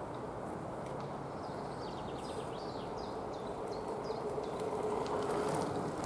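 A songbird singing a run of short, down-slurred whistled notes starting about two seconds in, over a steady low background rumble that grows a little louder toward the end.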